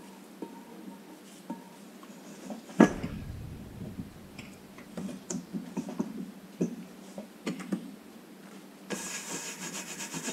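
A seasoning stick rubbed over the underside of a Lodge cast iron skillet: quiet rubbing with light scattered taps and one louder knock about three seconds in. Near the end a shop towel starts wiping the coating around, a steady scrubbing rustle.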